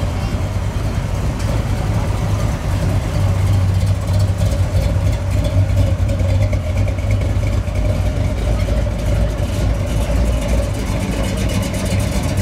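Classic American cars' engines running at low speed as they cruise slowly past one after another, a steady low rumble that swells around the middle as a red C3 Corvette goes by.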